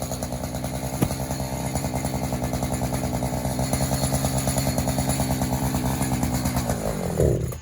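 Gas chainsaw running at high speed, cutting into a giant pumpkin. Near the end the throttle is let off and the engine falls quickly in pitch and loudness toward idle.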